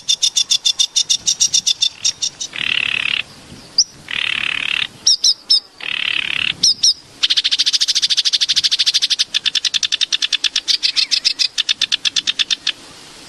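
A small bird calling: fast trills of sharp high notes, about ten a second. In the middle the trills break off for three short, harsh buzzy calls and a few quick rising whistles.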